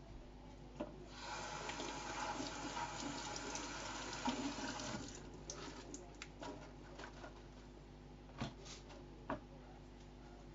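Water running, as from a tap, for about four seconds, then shutting off abruptly. A few scattered clicks and knocks follow.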